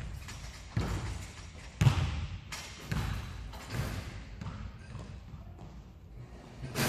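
A basketball hitting the hoop and then bouncing on a hardwood gym floor: a string of thuds about a second apart that echo in the large hall, the loudest about two seconds in.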